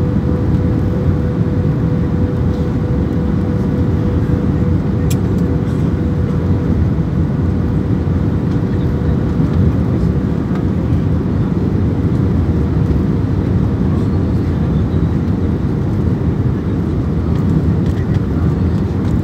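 Airliner cabin noise during descent for landing: the steady rumble of the jet engines and airflow, with a steady hum running through it.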